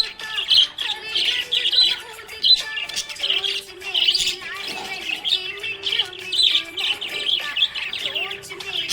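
Budgerigars chirping and warbling continuously in quick, overlapping chatter.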